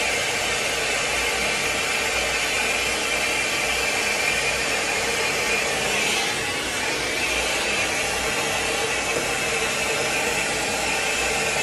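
Plumber's gas torch burning with a steady hiss as its flame heats a copper pipe joint for soldering.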